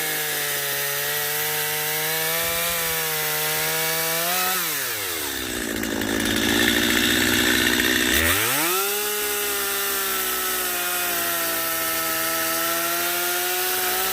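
Two-stroke chainsaw running at high revs, bogging down as the chain bites into the log about four and a half seconds in, cutting loudly for about three seconds with a gritty sawing noise, then revving back up to a steady high note before biting in again at the end.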